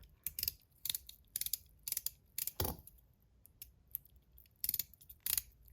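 Metal Top C slider fidget being snapped back and forth: sharp clicks, often in quick pairs, about every half second, with a short pause in the middle.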